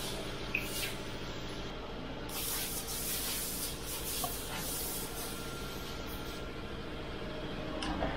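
A steady low machine hum runs throughout, with several brief hissing noises and a few faint clicks over it.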